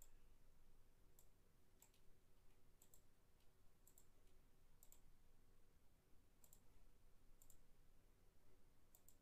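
Faint computer mouse clicks, about ten at irregular intervals of roughly a second, against near-silent room tone.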